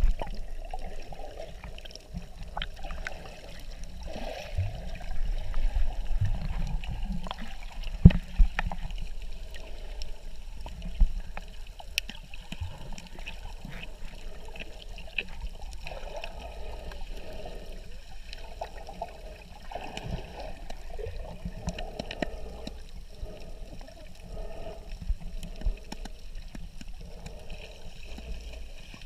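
Muffled water sounds heard from a camera held underwater: a low rumble with sloshing and gurgling water, and a few sharp knocks, the loudest about eight seconds in and again about three seconds later.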